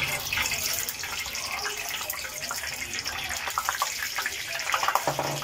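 Cooking oil pouring into a nonstick frying pan and sloshing as the pan is tilted to spread it: a steady liquid hiss, with a few light crackles near the end.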